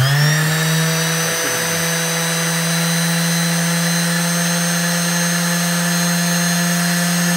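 Makita BO4900V orbital finishing sander, just switched on, reaching full speed within the first moment and then running steadily with a low hum and a high whine.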